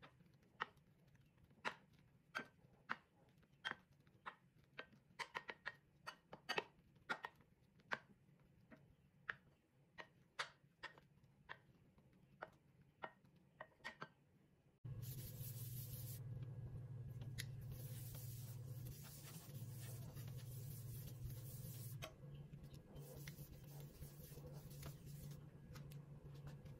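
A wooden spatula tapping and scraping against a glass bowl, with irregular light clicks, while folding whipped egg whites into egg yolk for a soufflé omelette. About halfway through this stops and a steady low hum with a hiss comes in suddenly.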